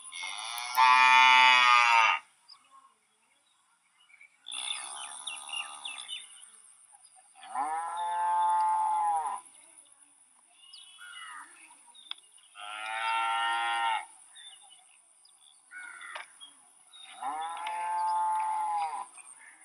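Cattle mooing: five long moos, each about a second and a half to two seconds, a few seconds apart, the first one the loudest.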